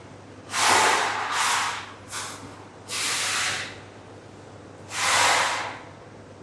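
Four short bursts of airy hiss, each about half a second long, over a faint steady low hum.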